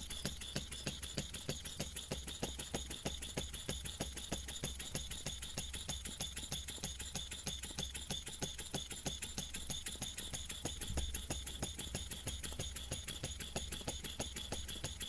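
Twin opposed vertical wig-wag model engine running slowly on low-pressure compressed air, a rapid, even ticking of exhaust puffs, several beats a second.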